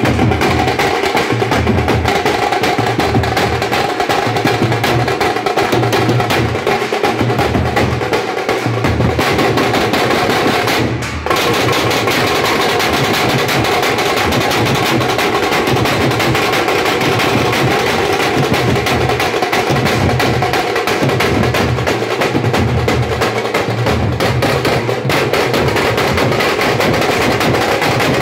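Teenmaar drum band: a row of drummers beating large stick-played drums in a loud, continuous rhythm, with a brief drop in level about eleven seconds in.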